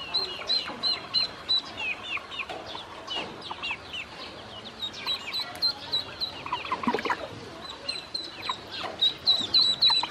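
A group of ducklings peeping without pause: short, high peeps repeating several times a second, mixed with lower, falling calls.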